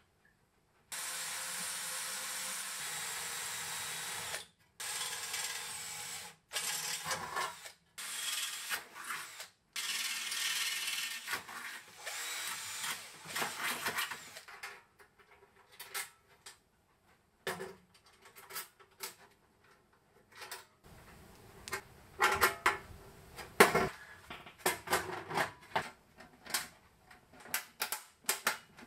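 Cordless drill boring into the sheet steel of a jerry can, running in bursts of a few seconds with short stops, followed by a series of sharp metallic clicks and knocks.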